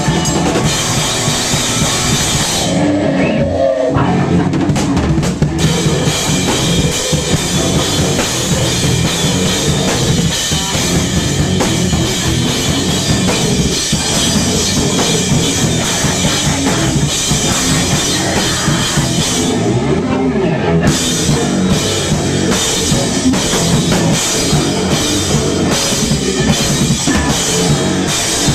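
A heavy metal band playing live and loud, led by a drum kit with crashing cymbals and backed by guitar, recorded close up among the players.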